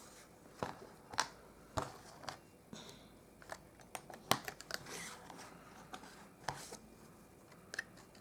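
Light clicks, taps and rustles of craft supplies being handled and put away: thin metal cutting dies and their plastic storage pouches. Several sharp ticks are spread through, with a longer soft rustle about five seconds in.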